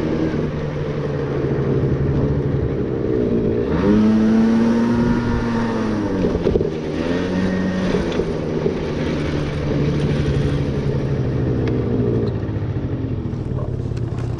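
Motor scooter engine running steadily while being ridden, rising in pitch as it speeds up about four seconds in, then easing back down after a couple of seconds and running on steadily.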